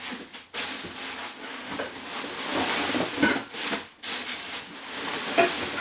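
Packaging rustling and rubbing as a tripod stand is slid out of it, with a few light knocks.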